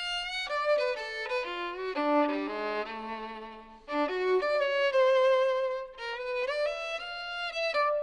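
Violin playing a melody, with a long held note with vibrato about five seconds in.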